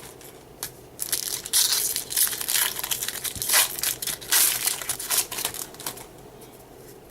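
Foil wrapper of a 2013 Bowman Baseball trading-card pack crinkling and crumpling for about five seconds as the pack is torn open.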